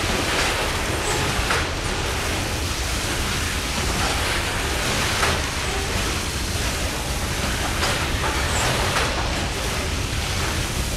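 Loaded coal hopper cars rolling past under a coal-sprayer gantry: a steady hiss of spray over the low rumble of the train, with a few sharp clicks.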